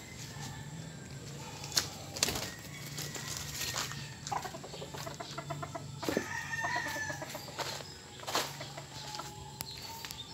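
Chickens clucking and calling, with rapid pulsed calls loudest about four to seven seconds in. A low steady hum runs underneath, and there are a few sharp knocks.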